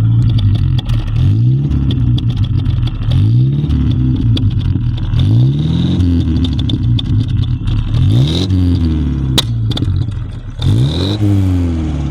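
Toyota Hilux engine revved up and let fall back about six times, with the high whistle of an aftermarket exhaust turbo whistle rising along with the revs. A couple of short sharp clicks come in the second half.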